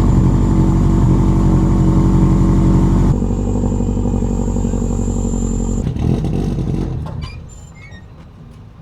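A car engine running steadily with a deep rumble. It changes abruptly about three seconds in and fades out between six and seven seconds.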